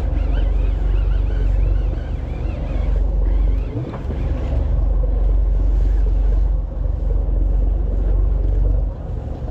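Steady low rumble of wind buffeting the microphone on a fishing boat at sea, with the boat and water noise underneath. A wavering high whistle sounds over it for the first few seconds.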